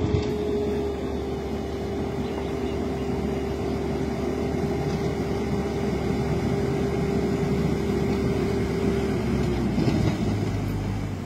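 Heavy construction machine's engine running steadily over the noise of flowing water, with a steady whine that sags in pitch about ten seconds in as the engine note changes.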